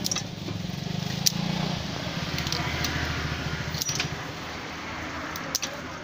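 Food-stall ambience: a steady low engine hum, with a few sharp clicks of metal utensils against stainless steel bowls and crab shells as raw seafood is cut for a spicy salad.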